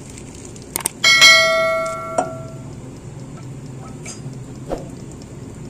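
Two quick clicks, then a bright bell chime rich in overtones that rings out and fades within about a second, followed by a second, lower ding: the click-and-bell sound effect of a subscribe-button animation.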